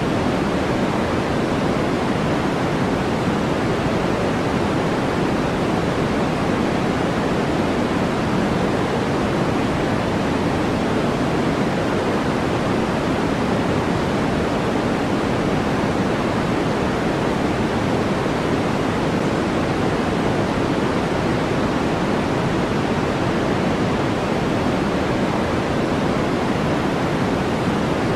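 Continuous synthetic white noise for sleep: a steady, unchanging rushing hiss with no events, fuller and deeper than a bright hiss.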